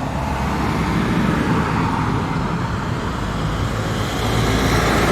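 Road traffic going past in the street, a vehicle's low engine rumble that grows gradually louder toward the end.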